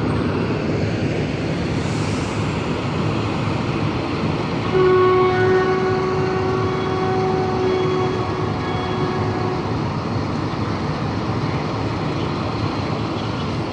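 A 060-DA diesel-electric locomotive's engine running with a steady rumble, and its single-tone horn sounding about five seconds in: loud for about a second, then held more softly for several seconds before fading out.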